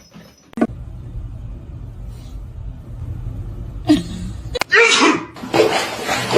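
A low steady rumble, then two loud sneezes in quick succession near the end.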